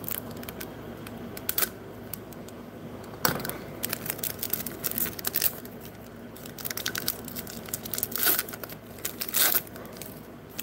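Plastic wrapper of a Bowman Platinum baseball card pack crinkling as it is handled and pulled open. It comes in irregular bursts, the loudest about three seconds in and again near the end.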